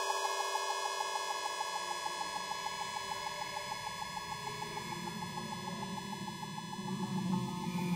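Background electronic music: sustained tones with a fast repeating pulse, low notes swelling near the end.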